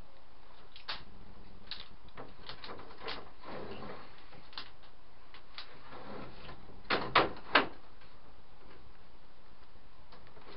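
Wooden knocks and clunks from timber being handled, with three louder knocks in quick succession about seven seconds in.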